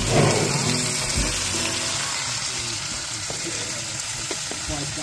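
Chicken pieces sizzling in oil in a frying pan over a gas stove: a steady frying hiss that eases slightly as it goes.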